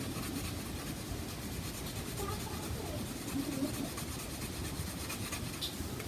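Pencil shading on sketchbook paper: a steady scratchy rubbing as an area is coloured in.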